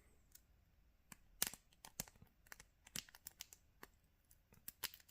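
Faint, irregular small clicks and taps of metal lockpicking tools being handled and fitted into a TSA padlock while a thinner tension tool is swapped in.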